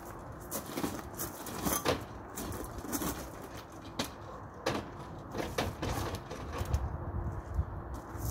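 Telescopic aluminium ladder being handled and shifted against a wall: a string of irregular metallic clicks and knocks over a low rumble.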